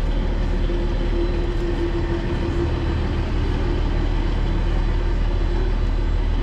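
Diesel engine of a cog railway train idling, a steady low rumble with a constant hum.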